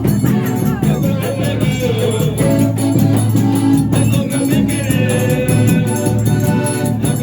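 Forró music with singing over a steady beat.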